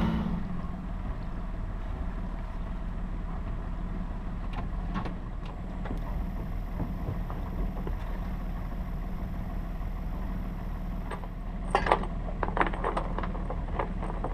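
A sailing yacht's inboard engine running steadily with a low hum as the boat motors up to a mooring. Near the end, a cluster of sharp knocks and clicks from gear being handled at the bow.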